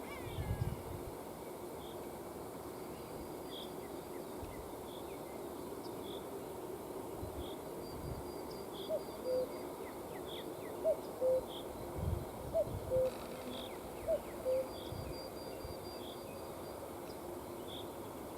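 Common cuckoo calling "cu-ckoo" four times in a row about a second and a half apart, each a higher short note dropping to a lower one. A small bird's faint high note repeats steadily behind it.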